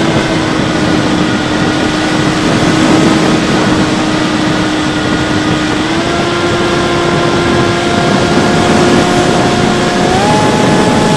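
Bixler 3 RC plane's electric motor and pusher propeller whining steadily under heavy wind rush on the onboard camera. The pitch steps up slightly about halfway through and jumps higher near the end.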